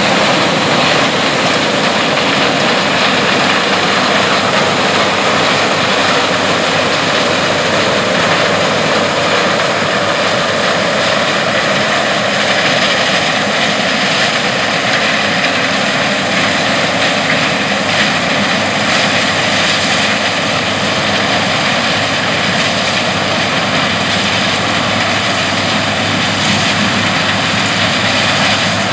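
New Holland CR8090 combine running steadily while harvesting corn: a constant, loud machine drone with no changes in pitch or level.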